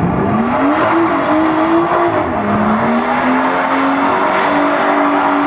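A car doing a burnout: the engine revs up and is held at high revs while the tyres spin and squeal. The revs dip about two seconds in, then hold steady again.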